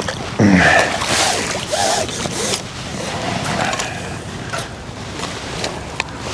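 Water splashing and sloshing as a hooked skimmer bream is drawn over the landing net and lifted out of the lake, the busiest splashing in the first couple of seconds, with a short sharp click near the end.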